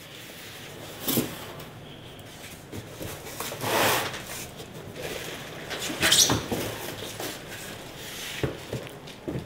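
Cardboard packaging of an industrial sewing machine being handled: scraping and rustling of cardboard, loudest about 4 s and 6 s in, with a couple of short knocks near the end.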